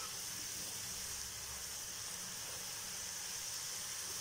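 Batter-coated okra (bhindi) deep-frying in hot oil in a kadai: a steady sizzle.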